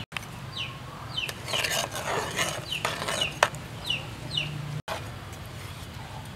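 Chicks peeping in short, high, falling chirps, often in pairs. Midway a ladle stirs and splashes liquid in an aluminium pot, with a sharp metal clink a little after three seconds in, the loudest sound.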